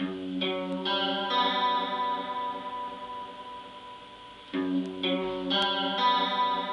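Music with ringing guitar chords. A few chords are struck in quick succession and left to ring, then the phrase starts again about four and a half seconds in.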